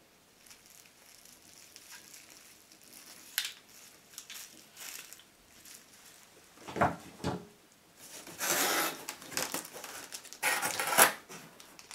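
Hands handling packaging: quiet rustling and a click, a couple of knocks about seven seconds in, then a small plastic bag crinkling as it is picked out of the foam insert, loudest near the end.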